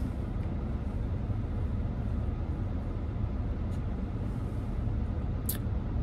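Steady low rumble and hiss inside a car cabin: the engine idling with the heater fan blowing. A couple of brief faint clicks sound in the second half.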